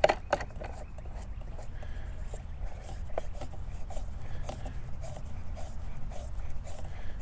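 Plastic tightening knob on a Yakima FrontLoader roof bike rack's rear wheel tray being turned clockwise by hand, giving faint scrapes and light clicks, with no ratchet action. A steady low rumble lies under it.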